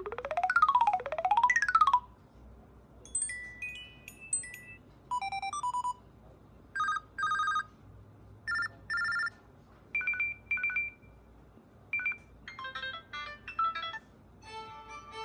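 LG K31 smartphone playing a run of short preset ringtone and notification tones one after another. It opens with a quick sweeping up-and-down electronic figure, then brief few-note melodies and paired electronic beeps, each lasting about a second with short gaps between.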